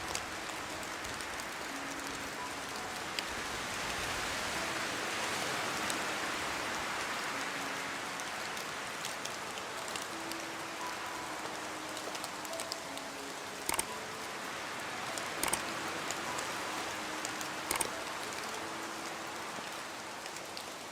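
Steady rain falling, an even hiss with a few sharper drop impacts standing out now and then. Faint soft held notes sound quietly beneath it.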